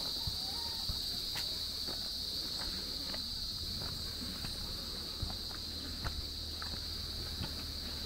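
A steady high-pitched drone of insects, with irregular short footsteps on the ground while walking.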